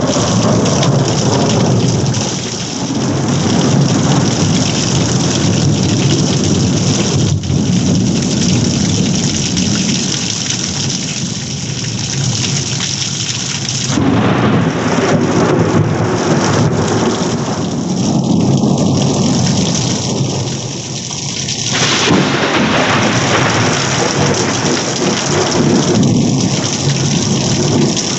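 Heavy rain pouring steadily with rumbles of thunder, a thunderstorm. The sound changes abruptly three times, as if separate recordings were joined.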